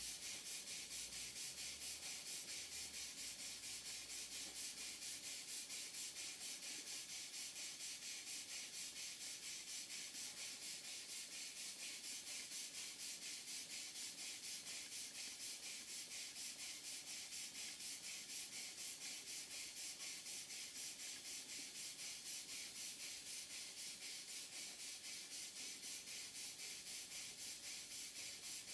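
Vintage workshop-type single-cylinder horizontal steam engine running steadily on live steam, its exhaust steam hissing in an even, rapid rhythm of puffs with each stroke.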